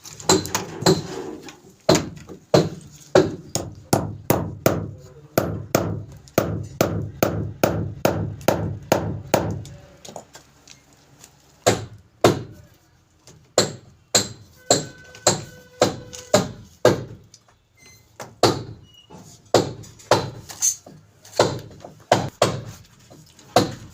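Repeated hammer blows, about three a second, struck steadily with a short break about halfway through.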